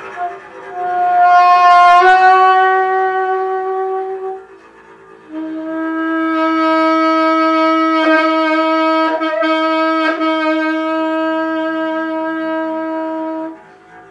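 Saxophone holding two long notes: the first lasts about three and a half seconds, and after a short break comes a lower note held for about eight seconds.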